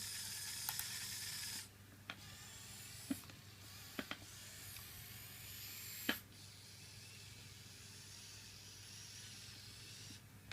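Small electric motors and plastic gearboxes of a toy RC excavator whirring with a high pitch, stopping about a second and a half in and starting again in shorter, quieter runs, with a few sharp plastic clicks.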